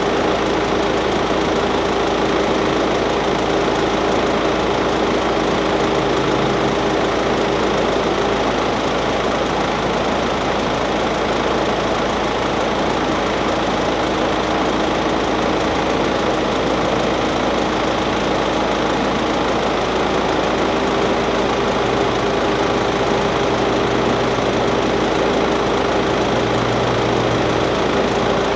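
Car engine idling steadily, with a faint steady hum that drops out about a third of the way in and comes back near two-thirds.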